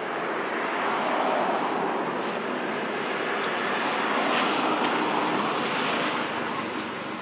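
Steady rushing outdoor background noise with a faint low hum, swelling about a second in and easing near the end.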